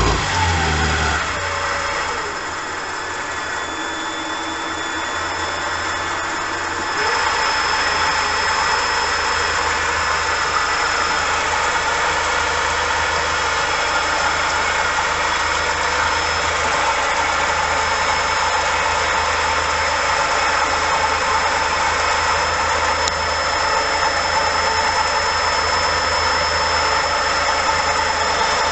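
Variable-speed 24-volt motor driving a Myford lathe's high-speed headstock spindle through a belt. It slows down right at the start and runs slower and quieter for a few seconds. About seven seconds in it speeds up again, then runs steadily with a high whine.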